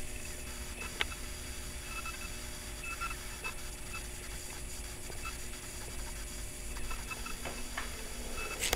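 Faint rustling and scraping of a handheld camera being moved about, with a sharp click about a second in and another near the end.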